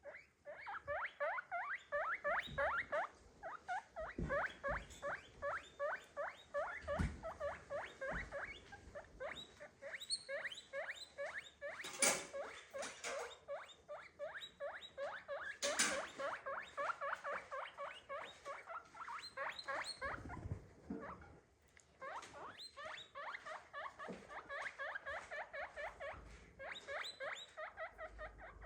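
Guinea pig squeaking in a rapid, continuous string of short high calls, several a second, with a brief pause about three-quarters of the way through. A couple of sharp rustling knocks sound near the middle.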